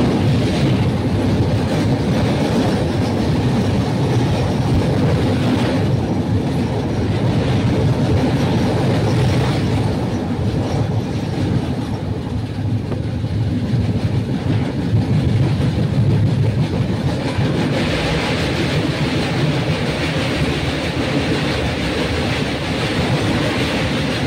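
Train running along the rails: a steady rumble with wheel clatter, turning brighter and hissier about three-quarters of the way through.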